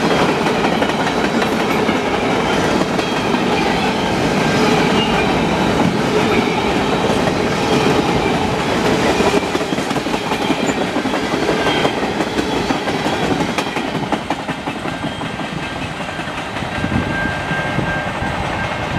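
Freight train cars, center beam flat cars and tank cars, rolling past at speed, their wheels rumbling and clattering over the rails. The noise eases near the end as the last car goes by, and a faint high steady ringing comes in.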